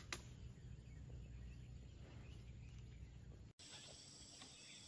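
Near silence: faint outdoor background with a low rumble, a single click just after the start, and a few faint high chirps in the last second or so.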